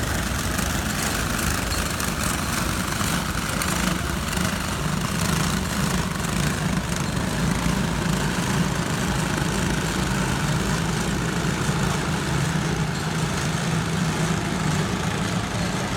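Small racing kart engines running steadily, a continuous mower-like engine hum.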